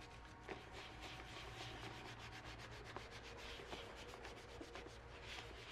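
Faint, quick rubbing strokes on the leather of a shoe, several a second, as conditioner is worked into the upper.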